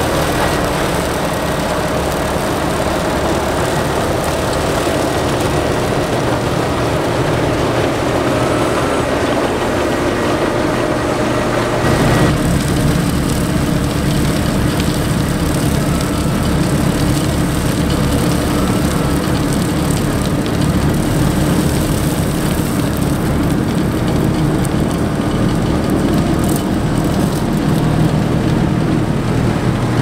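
Dewulf Kwatro self-propelled potato harvester running while it lifts potatoes: a loud, steady machine noise over a low engine drone. The sound changes abruptly about twelve seconds in.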